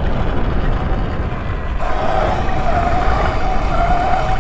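Electric dirt bike being ridden along a dirt path: wind rushes over the handlebar-mounted microphone and tyres rumble, and about two seconds in the motor's whine comes in, wavering in pitch as the throttle changes.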